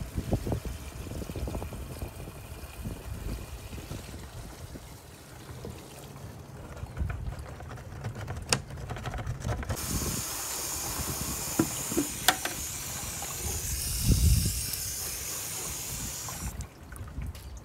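Liquid sulfur mix poured from a bucket into a FlowZone Typhoon battery-powered backpack sprayer's tank, a low splashing rumble with a few knocks, for about ten seconds. Then the sprayer's wand nozzle hisses steadily for about six seconds and cuts off suddenly.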